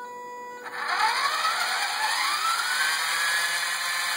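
Small brushed DC motors of an Arduino RC car running in reverse through an L298N motor driver. A steady whine starts, then under a second in the motor whir comes in, rising in pitch as the motors speed up, and holds steady at speed.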